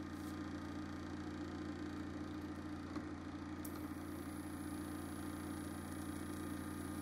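Steady low hum of several stacked tones over a faint hiss, from the tin-can thermoacoustic engine running on its induction-cooker heater. There is a light tap about three seconds in.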